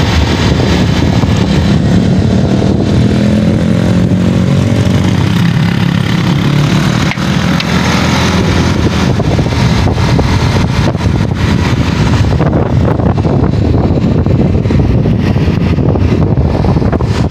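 Motorcycle engine running steadily while riding, heard from on the bike, with wind rushing over the microphone.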